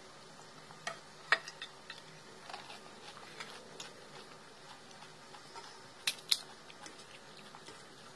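Crisp panipuri (golgappa) shells being cracked open with the fingers and handled over stainless steel bowls: a scattering of sharp cracks and light clinks, the loudest a little over a second in and a close pair past the middle.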